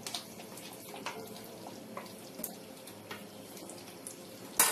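Creamy gravy simmering in a pan with a low, even hiss, and a few soft taps as paneer cubes slide in from a plate. Near the end, a sharp knock of a wooden spatula against the pan.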